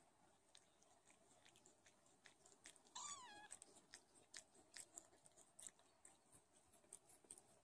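Faint, wet clicking of a Don Sphynx mother cat licking her newborn kittens, with one short, high mew from a kitten about three seconds in.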